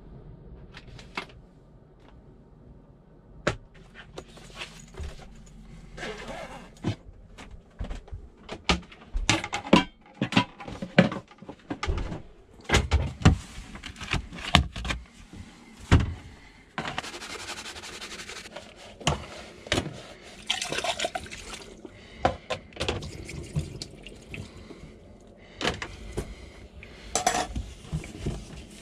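Knocks and clinks of dishes and a plastic drainer rack being handled in a wooden cupboard, with water running from a tap into a stainless steel sink for a few seconds around the middle and again briefly near the end, as dishes are washed with a cloth.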